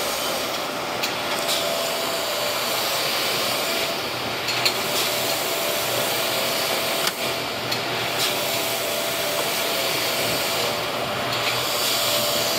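Poster collator and polybagger line running at close to full speed: a steady mechanical running noise from the belts and rollers, with a faint steady hum and a few sharp clicks here and there.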